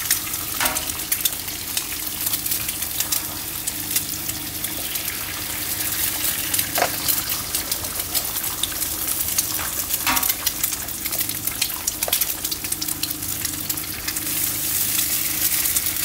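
Bacon and eggs sizzling and spattering in butter on a hot griddle turned up high, with a dense steady crackle and a low hum underneath. A few light knocks of a utensil come now and then.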